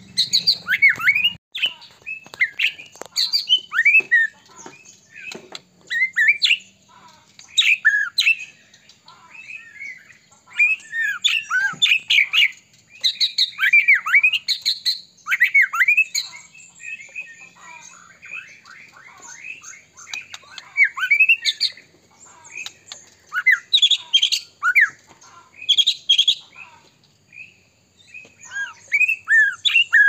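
White-rumped shama (murai batu) in full song: a loud, varied stream of whistles, chirps and quick glides, delivered in bursts of phrases with short pauses between them. This is the constant 'gacor' singing that keepers play to provoke other shamas into song.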